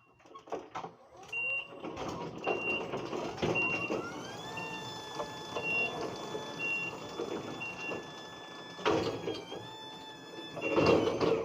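A vehicle's back-up alarm beeping about once a second, while an engine revs up about four seconds in and holds a steady whine.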